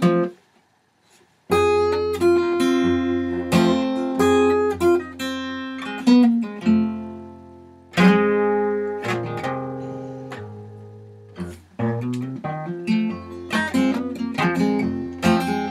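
Acoustic guitar with a capo played as a blues intro, with picked notes and chords that start after a short gap about a second and a half in.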